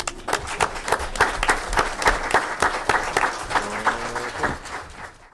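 Audience applauding with dense, steady clapping after a talk ends. It cuts off suddenly at the end.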